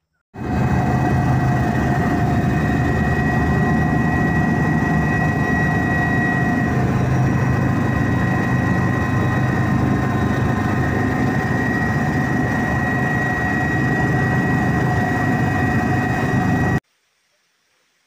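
Aircraft engine running steadily: a dense low drone with steady whining tones above it, starting abruptly and cutting off suddenly near the end.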